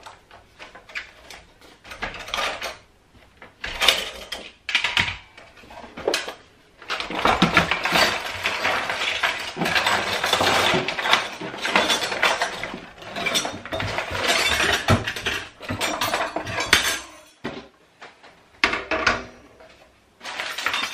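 Metal kitchen utensils and gadgets clattering and clinking as a junk drawer is emptied and its contents sorted through on a counter. Scattered clicks give way to a dense run of clatter through the middle, then a lull and a brief clink near the end.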